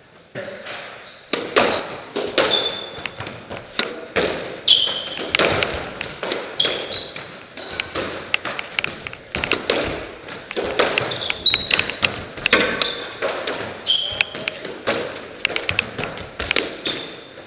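Squash rally: the rubber ball smacking off the racket and the court walls in quick succession, with rubber shoe soles squeaking sharply on the wooden floor between shots.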